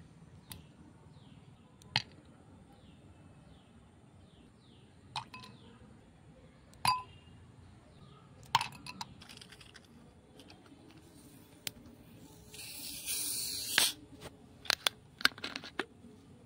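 Ice cubes dropped one at a time from tongs into a glass, each landing with a sharp clink, several a second or two apart. About twelve and a half seconds in, a loud hiss lasting about a second as a carbonated soft-drink bottle is opened, followed by a few quick clicks.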